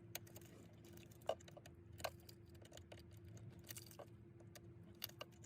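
Near silence broken by a few faint, scattered clicks and light taps from a hand tool working the bolts of a car's center console lid, over a faint steady hum.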